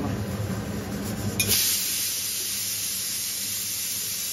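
A low hum, then about a second and a half in a steady high hiss starts suddenly and keeps on.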